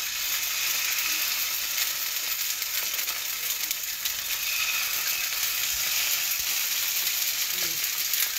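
Salmon fillets sizzling steadily in hot oil in a frying pan, laid in skin side down to sear.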